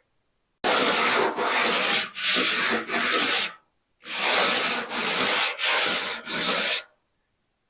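Sanding block rubbed back and forth over a guide-coated aluminum door skin of a 1959 MGA, eight strokes in two runs of four with a short pause between. The scuffing takes the guide coat off the high spots of the panel-beaten metal and leaves it in the low spots.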